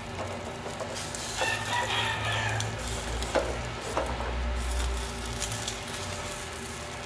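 A rooster crows once, starting about a second and a half in, over food frying in a pan. A spatula clicks twice against the nonstick pan as the bread rolls are turned.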